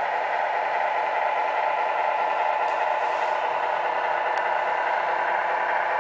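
Tamiya 1/14 Scania Topline radio-controlled model truck running, a steady mechanical drone that stays the same as the truck drives off, with a faint click about four seconds in.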